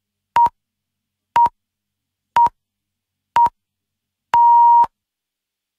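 Radio time-signal pips: four short beeps a second apart, then one longer final beep at the same pitch, the pattern that marks the top of the hour.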